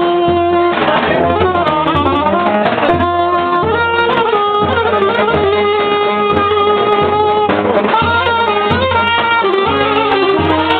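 Live saxophone playing a quick melody with held notes and runs, over a steady low repeating beat from the band's accompaniment.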